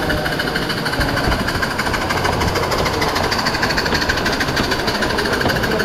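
Live steam model locomotive running, its exhaust chuffing in a fast, even beat.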